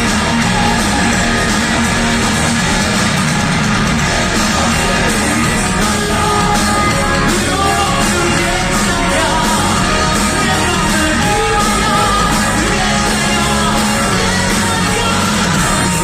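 Loud rock-style band music with a singer.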